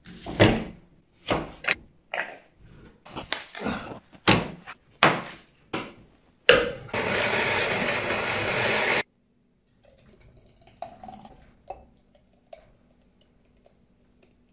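A kitchen knife chops through an apple onto a plastic cutting board, with a dozen or so sharp chops. An electric blender with a chopper bowl then runs for about two and a half seconds and cuts off suddenly, followed by faint soft clinks as the thick smoothie is poured into glass jars.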